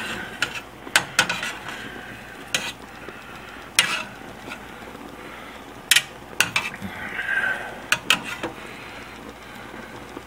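Metal barbecue tongs clinking and scraping against the inside of a stainless steel stockpot while pieces of venison are turned among steaming vegetables, about ten sharp clinks at irregular intervals.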